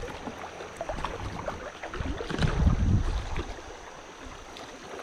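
Water and small knocks around a canoe on the river, with wind buffeting a chest-mounted microphone; a louder stretch of low rumbling comes about two seconds in.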